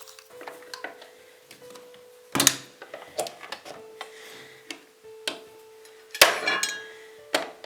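Clicks and knocks of a heat gun and its nozzle attachments being handled and fitted, with two louder clattering knocks about two and a half and six seconds in.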